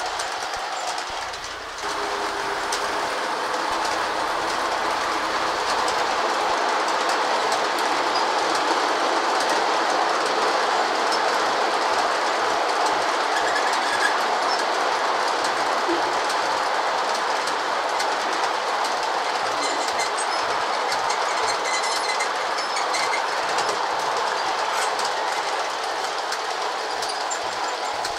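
G scale model freight cars rolling past on the track: a steady rolling rumble with frequent light clicks, getting a little louder about two seconds in.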